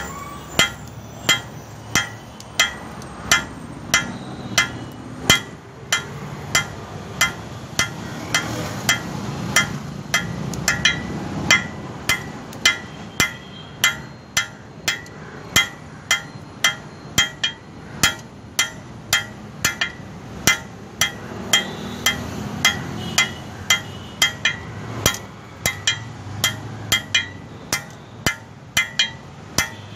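Blacksmith's hammer striking metal on an anvil while forging tongs from 12 mm square stock: a steady run of ringing blows, about two to three a second, with a few short pauses.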